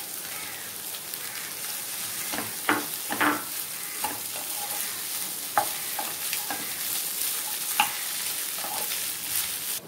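Egg fried rice sizzling in a nonstick pan while a spatula stirs and tosses it through the cooked basmati rice and egg-vegetable mix. A steady hiss of frying is broken by sharp clicks and scrapes of the spatula against the pan, a few seconds apart.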